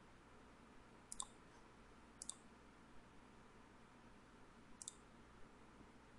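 Three computer mouse clicks, spaced irregularly, over a near-silent room.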